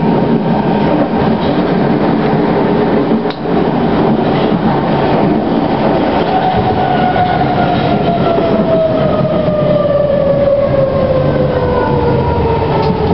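London Underground C Stock train running through a tunnel, heard from inside the carriage: a loud, steady rumble of wheels on rail. From about halfway through, a whine falls steadily in pitch as the train slows into a station.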